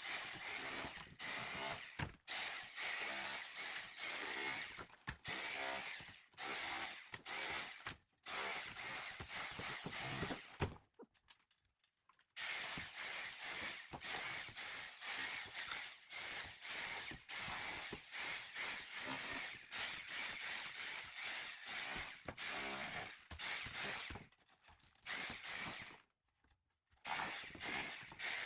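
Metal chisels scraping and chipping old plaster and mortar off a soft limestone wall in quick rasping strokes, with short pauses about ten seconds in and near the end.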